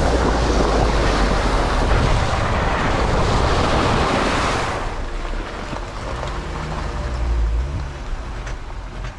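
Jeep's front tyre splashing through a muddy puddle, water spraying against the body, heard through a camera mounted on the outside with wind on its microphone. About five seconds in the splashing drops away to a quieter, low rumble as the Jeep rolls on.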